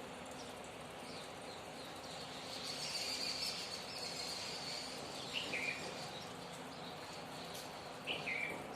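Small birds calling over steady background noise. A high thin call holds for a couple of seconds, then two short chirps fall in pitch, about three seconds apart.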